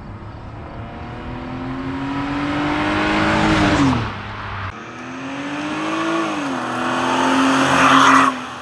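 BMW E46 330Ci's 3.0-litre inline-six through a Magnaflow cat-back exhaust, accelerating hard past twice. Each time the exhaust note climbs in pitch and loudness as the car comes on. The first pass falls away about four seconds in, and the second is loudest just before it cuts off near the end.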